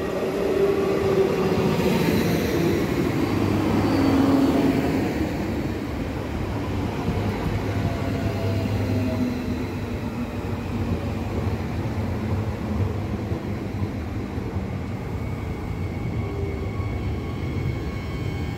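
Regio 2N double-deck electric train passing close by: its motor and running tones slide down in pitch as the front goes past, loudest in the first few seconds, then the cars roll by with a steady rumble of wheels on rail.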